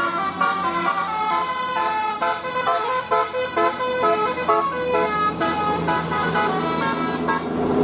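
Basuri telolet bus horn playing a fast tune of short, stepping horn notes. The tune stops near the end.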